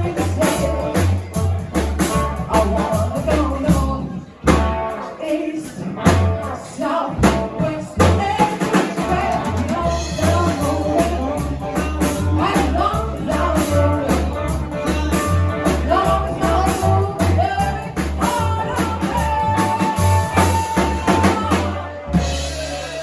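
Live rock and roll band playing a song with vocals over drums and a pulsing bass line; the song stops near the end.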